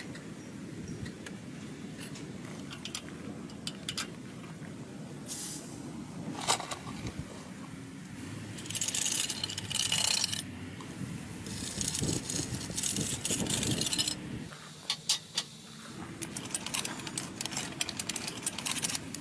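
Coal being loaded by hand through the small metal firebox door of a coal-burning live-steam model locomotive: clicks, rattles and scrapes of lumps against metal, with two longer stretches of hissing scraping in the middle and a dense run of rattling near the end, over a steady low rumble.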